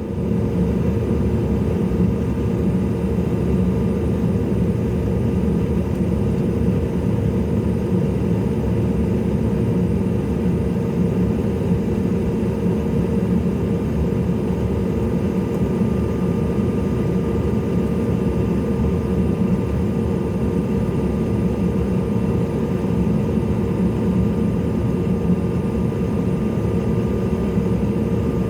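Cabin noise from the CRJ-700's two rear-mounted turbofan engines running steadily at low power: a constant low rumble with a faint, even whine on top, and no change in thrust.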